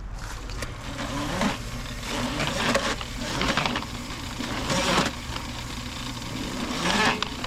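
Drain-cleaning snake machine running, its motor humming steadily while the spinning cable clatters in irregular surges as it is fed into a clogged 4-inch drain pipe.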